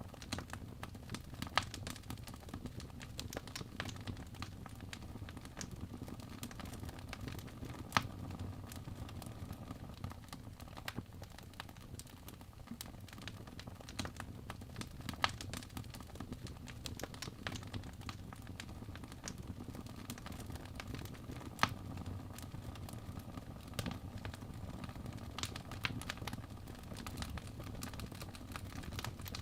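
Wood fire crackling: a steady low rumble with many small irregular pops and snaps, and a few sharper, louder pops several seconds apart.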